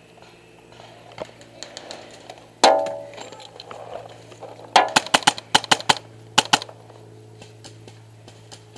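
Paintballs striking a rusted metal container used as cover: one loud, ringing hit about two and a half seconds in, then a rapid string of about eight sharp cracks between five and six and a half seconds in.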